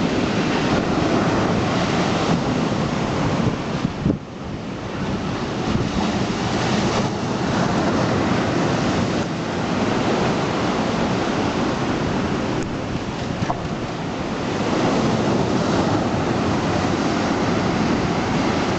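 Black Sea surf breaking heavily on the shore, a steady wash of noise that swells and eases with the waves, with wind buffeting the microphone.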